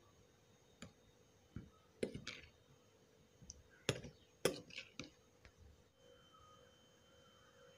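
A metal spoon clinks and taps against a bowl while stirring a thick chutney. The short, sharp clicks are scattered, with the loudest about four and four and a half seconds in.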